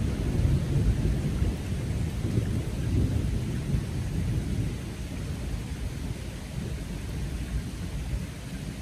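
A low rumble of thunder slowly dying away over steady falling rain.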